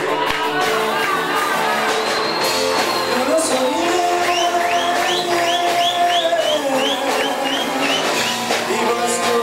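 Music with singing. Midway a run of short rising chirps, about three a second, plays over it for a few seconds.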